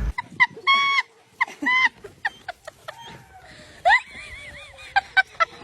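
A dog whining in a run of short, high-pitched cries, some drawn out and bending in pitch.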